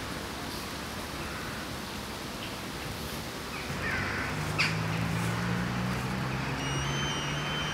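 Steady outdoor background noise with a few faint short calls, like birds, and a sharp click about halfway through; a low steady hum comes in about halfway and carries on to the end.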